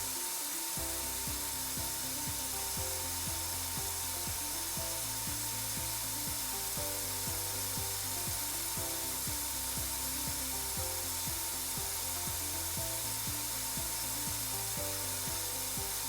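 Spin rinse dryer spinning in its final dry cycle at about 500 RPM: a steady airy hiss with a constant whine, and an even run of quick clicks underneath.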